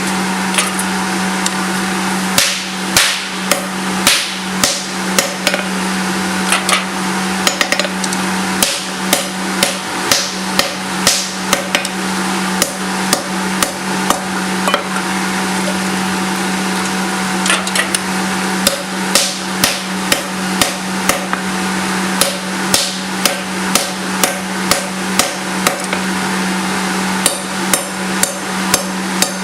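Hammer striking a Damascus steel billet on an anvil, blow after blow at about one to two a second, with a pause in the middle. A steady low hum runs underneath.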